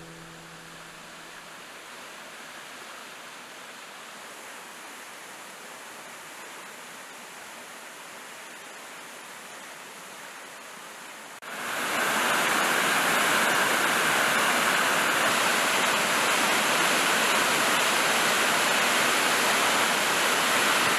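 Rushing water of a mountain valley stream, a steady even rush that jumps suddenly much louder about eleven and a half seconds in, as from a closer spot by the water.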